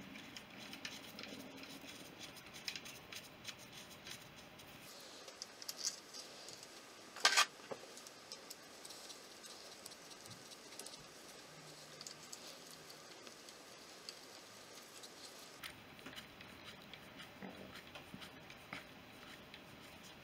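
Faint small clicks and metallic ticks of a hand driver turning bolts into an aluminium Honda CB350 crankcase, with one sharper clink about seven seconds in.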